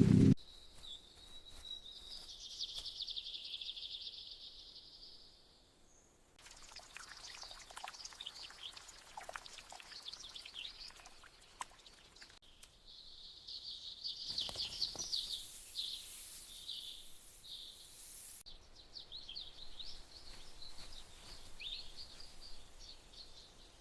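Small birds chirping and trilling in a forest ambience, heard as several separate stretches of birdsong that begin and end abruptly, with a brief near-silent gap about six seconds in.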